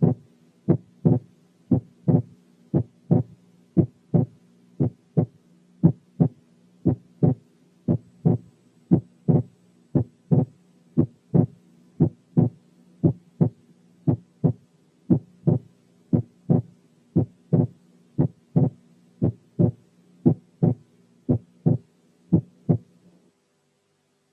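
Stethoscope recording of a child's heart: a steady lub-dub rhythm of first and second heart sounds over a low hum. The second sound splits on inspiration and becomes single on expiration, which is normal physiological splitting. The beats stop about a second before the end.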